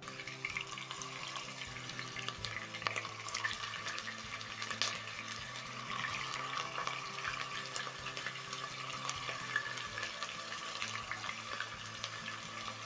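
Beef chunks and bone-in osso buco searing in hot cooking oil in a pot over a high flame: a steady sizzle with many small pops and crackles.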